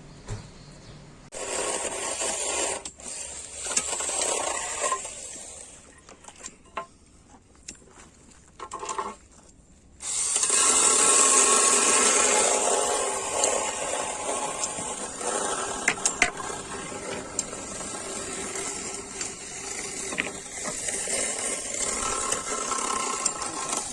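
A small electric power tool's motor running, in two short runs and then continuously from about ten seconds in, with scattered clicks in between.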